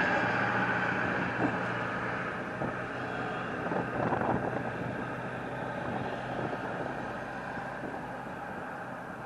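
Motor vehicle running, its steady engine hum and road noise slowly fading away, with some wind on the microphone.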